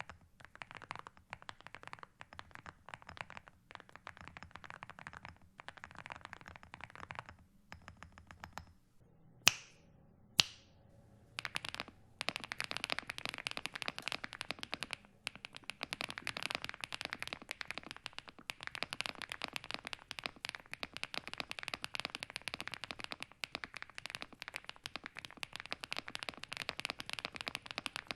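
Fast typing on mechanical keyboards: first a Meletrix Zoom75 with Vertex V1 switches and ceramic keycaps. After a short pause and two loud, sharp clacks, an MCHOSE GX87 with Geonworks Raw switches is typed on, a little louder.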